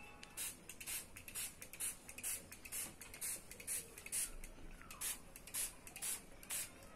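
Small hand-pump spray bottle misting water onto watercolour paper: about fourteen quick spritzes, roughly two a second.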